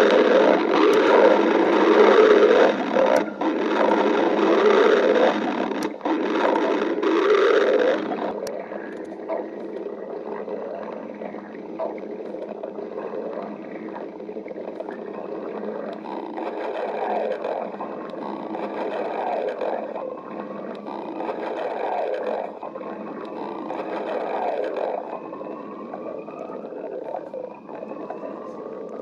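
A person's stomach growling and gurgling. It is loudest and densest for about the first eight seconds, then drops to quieter, irregular gurgles, with a few rising squeaky tones near the end.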